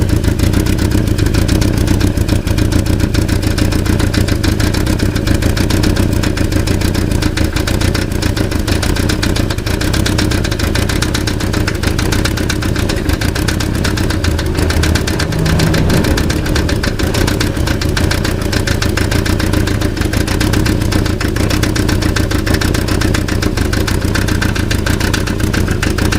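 Volkswagen Passat engine idling steadily with a fast, continuous rattle over it. The rattle comes from a loose catalytic converter, though it sounds like an engine noise.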